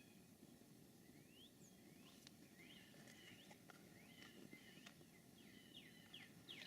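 Faint songbirds chirping, with many short quick notes repeating throughout and growing busier near the end. A few faint ticks come in between.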